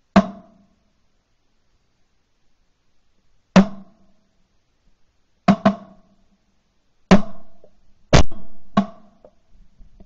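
Shotgun shots fired at flying game birds, seven sharp reports at uneven spacing, two of them in quick succession about five and a half seconds in. The recording is from a camera mounted on the gun.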